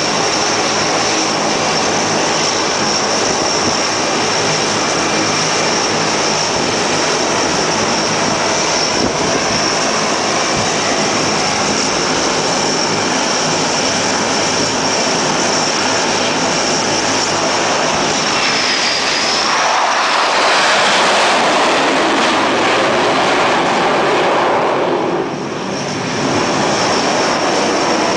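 Continuous jet engine noise on an aircraft carrier's flight deck, with a steady high whine running under it. About two-thirds of the way through, a fighter jet's roar swells as it comes in to land on the deck; it drops off briefly near the end, then picks up again.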